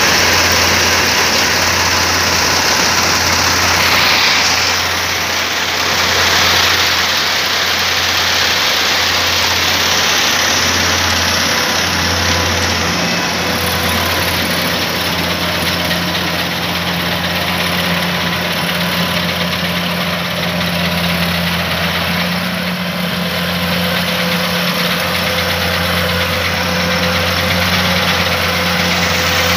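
Kubota AR96 combine harvester running steadily: an even engine hum under a constant mechanical rush, with a second low steady tone joining about twelve seconds in.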